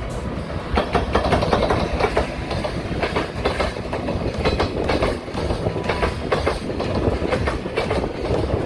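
Freight train running past, its wheels clattering rapidly over the rail joints over a steady low rumble.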